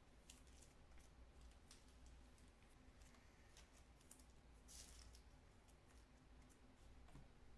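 Near silence: room tone with a low steady hum, scattered faint clicks, and one brief rustle about five seconds in.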